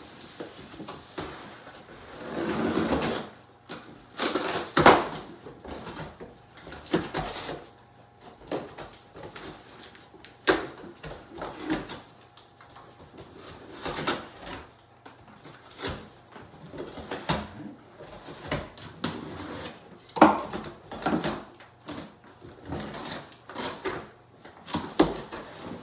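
Cardboard shipping boxes being opened and handled: flaps pulled back and packing tape cut, giving irregular rustles, scrapes and knocks. A sharp knock about five seconds in is the loudest.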